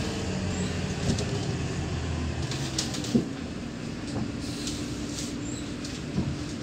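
Neoplan K4016td city bus heard from inside the passenger cabin while under way at low speed: its MAN D0826 six-cylinder diesel running, easing off about two and a half seconds in, after which a steady whine from the ZF 5HP500 automatic gearbox carries on. A few short knocks and rattles from the body.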